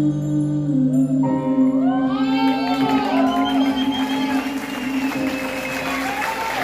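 Live music ending a song: held notes with a gliding melodic line over them, and crowd noise building up from about halfway through.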